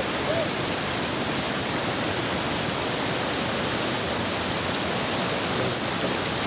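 Waterfall crashing down, a loud, steady, even rush of water.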